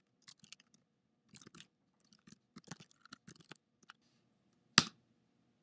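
Typing on a computer keyboard: light keystrokes in small irregular clusters, then one much louder key strike near the end. That strike is the Return key entering the finished command.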